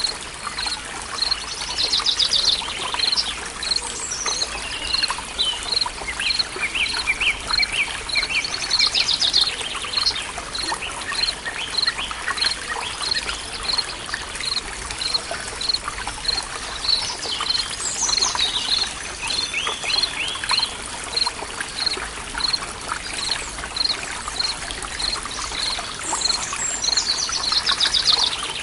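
Forest ambience: a stream trickling steadily, with several birds singing bursts of trills and chirps over it, and one high peep repeating about twice a second.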